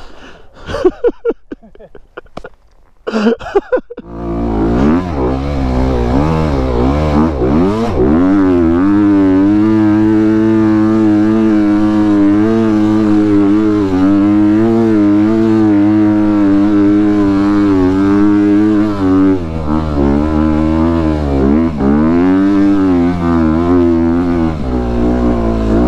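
A few seconds of scattered knocks and clatter, then a Honda dirt bike engine picks up and runs loudly as the bike is ridden, its pitch rising and falling with the throttle and dipping briefly a few times near the end.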